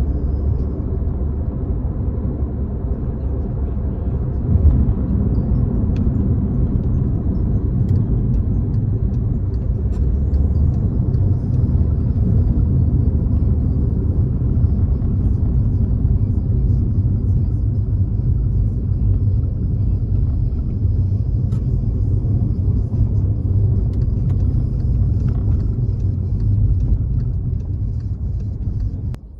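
Volkswagen Jetta cruising: a steady, loud low rumble of engine and road noise. A faint, steady high whistle sits above it from about a third of the way in.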